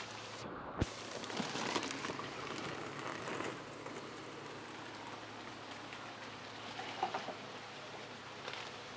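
Water splashing and trickling as a plastic bag of fish is tipped and emptied into an aquarium tank, over a steady hiss of running water from the tank system.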